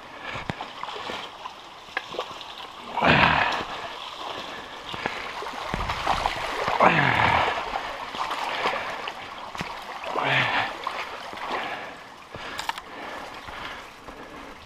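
Mountain bike tyres splashing through a shallow rocky creek, with louder surges of splashing about three seconds in, around seven seconds and around ten seconds. A single sharp knock comes near the end.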